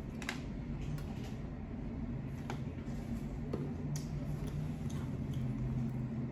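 Scattered soft clicks and mouth sounds of a person drinking from a plastic water bottle and then chewing, over a steady low hum.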